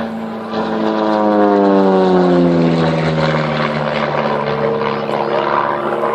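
Propeller aircraft flying past, its engine note dropping in pitch as it goes by and loudest about two seconds in.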